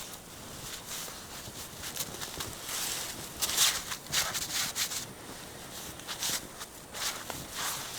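Footsteps crunching in snow, an uneven series of steps.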